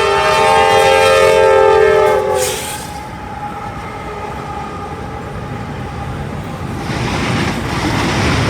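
Semi truck's air horn blowing a loud chord of several notes for a little over two seconds, its pitch sagging as it cuts off. A steady low rumble and hiss follows and grows louder near the end.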